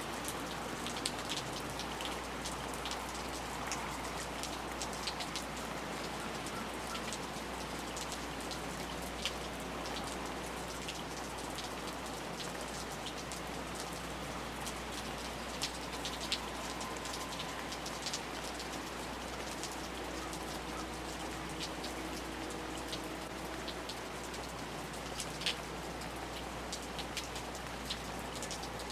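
Steady rain falling on a surface, an even hiss with scattered sharp drop ticks throughout.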